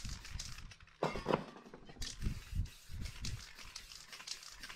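Aerosol spray paint can hissing in quick repeated strokes, about three a second, with soft low thumps alongside. About a second in comes a louder, duller swish that lasts about a second.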